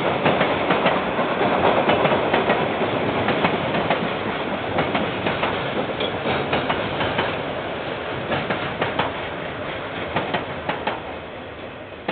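KiwiRail train running past, its wheels clacking over the rail joints in a rapid irregular series of clicks over a steady rumble, fading as it moves away.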